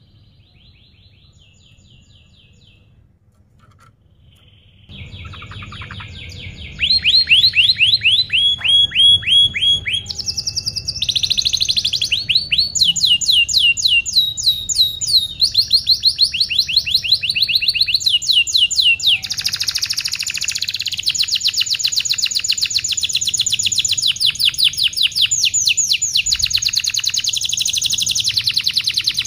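Domestic canary singing a long song of rapid trills and fast repeated chirping note series, each phrase changing pitch. It starts faint and becomes loud from about seven seconds in.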